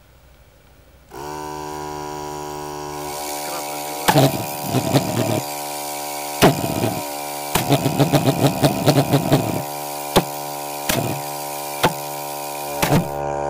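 A steady electrical buzz switches on about a second in. Over it come sharp single cracks and stretches of rapid crackling and popping, from the electric igniter of a homemade valveless pulsejet during a start attempt on gas. The engine fails to catch and run.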